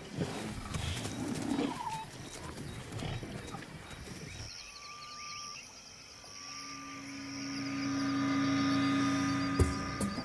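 Lions growling and squabbling as they feed on a kill, with a short rising squeal. About halfway through, this gives way to soft sustained music that swells and becomes the loudest sound.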